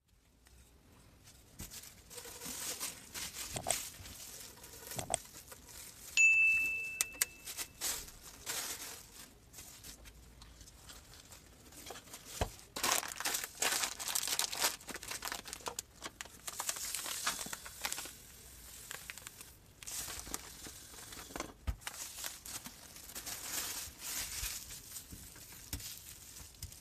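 Thin clear plastic bags crinkling and rustling in irregular bursts as hands handle and wrap them around a PVC pipe. A brief high tone sounds once, about six seconds in.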